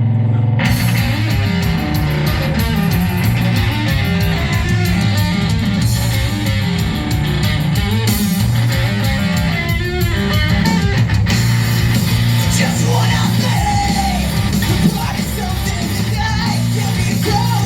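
Live rock band playing loud, with electric guitar, heavy bass and drums, and yelled vocals in the second half.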